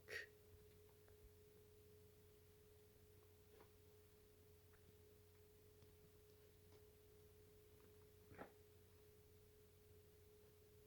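Near silence: room tone with a faint steady high hum and a couple of soft, faint clicks.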